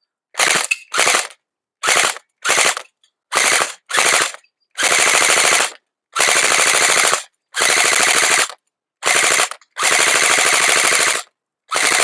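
Electric AK-47 airsoft rifle (AEG) firing on full auto in about a dozen bursts, its gearbox cycling rapidly, the early bursts short and the later ones about a second long.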